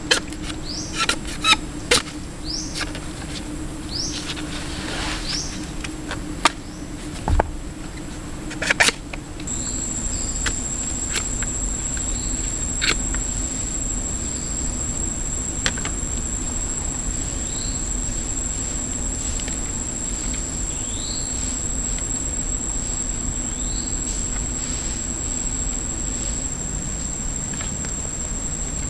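Forest ambience: birds giving short rising chirps, with sharp clicks as bamboo strips are cut with a knife and handled. About a third of the way in, a steady high-pitched insect drone starts and carries on, with a few more chirps over it.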